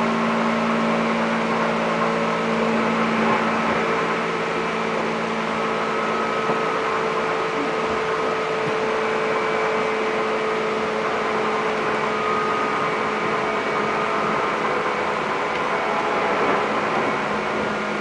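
Seibu 10000 series limited express train running steadily at speed, heard from inside the passenger car: an even rumble with a steady hum.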